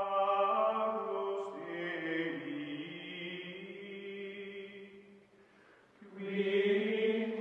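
Outro music of long, held chant-like vocal notes. It fades briefly about five seconds in, then swells back.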